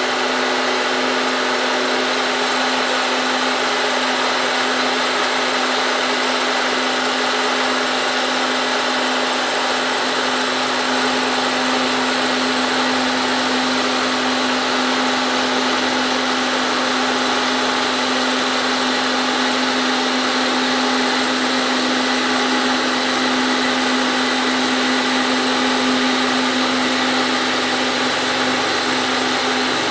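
Vertical milling machine with a Volstro rotary milling head running steadily, its end mill cutting a radius in an aluminium test piece: an even motor hum with cutting noise that does not change.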